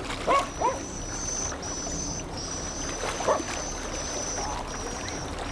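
Steady wash of water and wind, with a high, steady tone that breaks off and restarts every second or so. A few short call-like sounds come in the first second and again about three seconds in.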